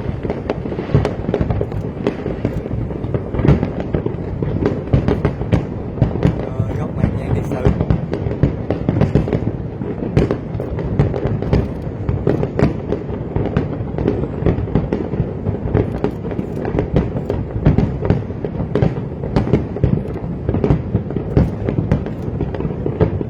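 Fireworks display going off continuously, a dense run of overlapping bangs and crackles with no break.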